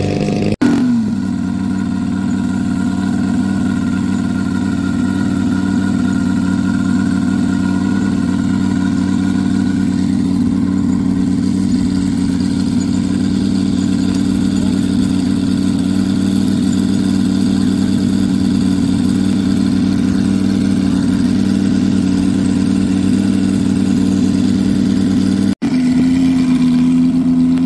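Engine of a giant-scale RC model biplane idling steadily on the ground, one even drone. There is a brief break just after the start and a sharp dropout near the end, after which the engine runs at a slightly higher pitch.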